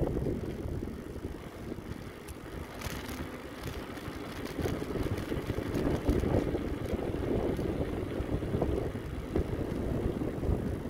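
Wind rushing and buffeting over the microphone of a mountain bike being ridden, with the bike's own rolling noise underneath. A few sharp clicks come about three seconds in.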